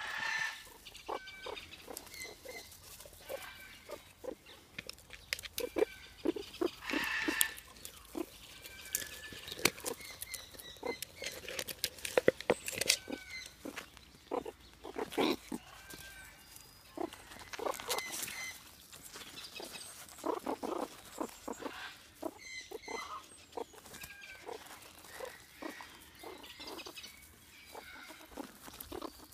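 Meerkats feeding at close range: short high chirps and low grunts from the foraging meerkats, mixed with irregular scratching and scuffling of paws on fabric and wood chips.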